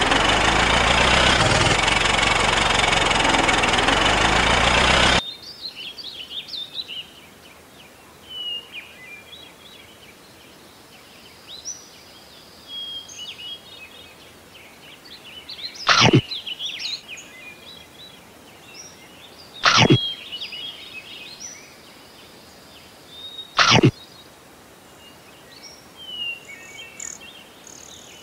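A tractor engine running loudly, cutting off suddenly about five seconds in. After it, quiet birdsong chirps, broken by three loud, sharp snaps a few seconds apart.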